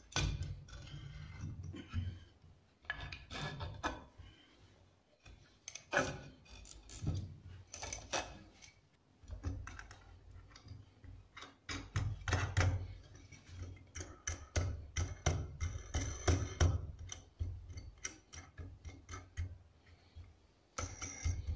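Handling noise of a homemade wooden bar clamp: wooden bars and boards knocking and sliding against each other, with irregular clicks and taps as wing nuts are run down the threaded steel rods.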